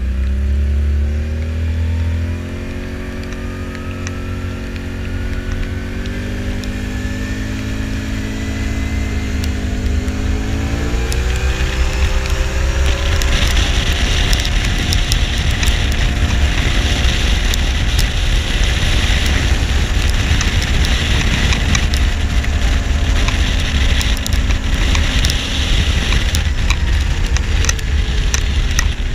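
Quad bike engine running under way, its pitch climbing in stages over the first dozen seconds as it speeds up, then holding steady. From about thirteen seconds a loud rushing hiss with crackles, wind on the microphone, covers it.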